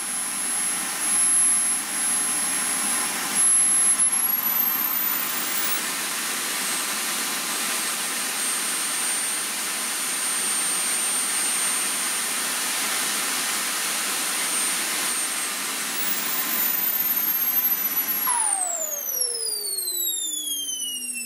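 KingTech K142 G4 model jet turbine running: a loud roar with a high whine that rises in pitch a few seconds in as it spools up, then holds steady under throttle. About eighteen seconds in the roar drops away and the whine falls steeply in pitch as the turbine spins down with its fuel cut, the shutdown of a failsafe test with the radio switched off.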